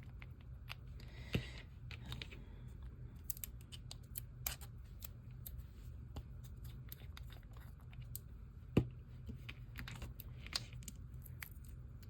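Scattered light clicks and taps from handling gel polish bottles and their packaging, with two sharper knocks, one about a second in and one near nine seconds.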